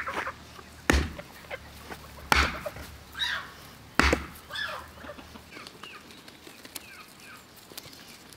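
Farmyard geese and chickens calling in short rising and falling cries, among three sharp knocks about a second and a half apart. Faint small-bird chirps follow in the second half.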